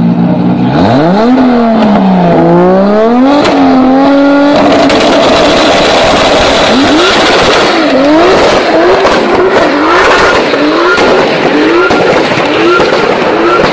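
Toyota Supra's engine revved hard, its pitch climbing, dipping and climbing again, then launching with tyre noise and wheelspin. From about seven seconds in the revs rise and fall in quick repeated sweeps, roughly every 0.7 seconds, as the car spins its tyres away from the crowd.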